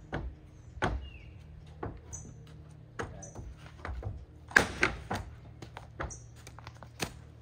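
A horse's hooves knocking on the floor of a stock trailer as it shifts and backs out, irregular single strikes with a louder scramble of hoof strikes about four and a half seconds in. Birds chirp briefly.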